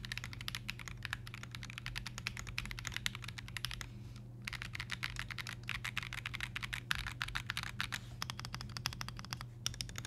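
Fast continuous typing on an Akko ACR Pro Alice gasket-mount ergonomic mechanical keyboard with light, quiet Akko Crystal linear switches: a steady stream of soft key clacks, pausing briefly twice. The owner feels the stabilizers could still use a little tuning.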